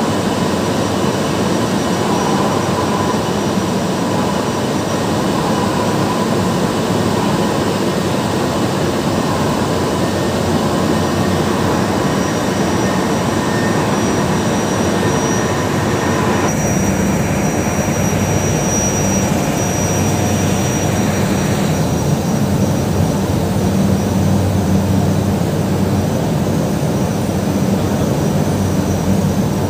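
Tea-processing factory machinery running: conveyor belts and processing machines making a loud, steady mechanical noise with a faint high whine. The noise shifts suddenly at about 16 seconds and again a few seconds later, becoming lower and heavier.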